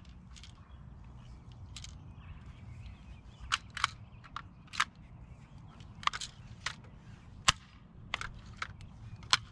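Barra 1866 lever-action BB and pellet air rifle being handled: scattered sharp metallic clicks from its lever and action, and one louder sharp crack of a shot about three-quarters of the way through.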